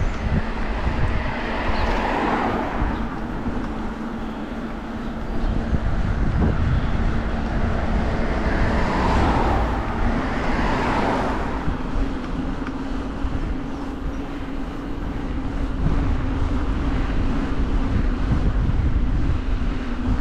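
Wind rumbling on a bike-mounted camera's microphone while riding downhill, with cars passing by, one about two seconds in and another around ten seconds in.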